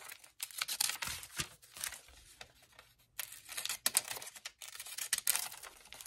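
A glossy magazine page being torn by hand, in a run of short, crackly rips with paper rustling between them.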